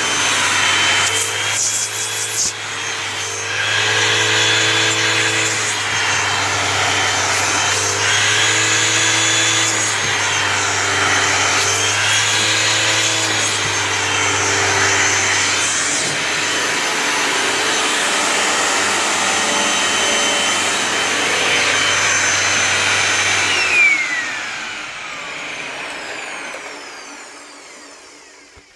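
Dirt Devil Swivel Glide Vision upright vacuum running, its tone rising and falling every few seconds. About 24 seconds in it is switched off, and the motor whines down in pitch as it spins to a stop.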